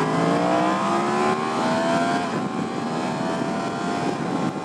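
2019 Yamaha MT-10's crossplane inline-four engine accelerating hard, its pitch climbing, dropping back on an upshift a little past two seconds in and climbing again. A steady rush of wind and road noise runs underneath.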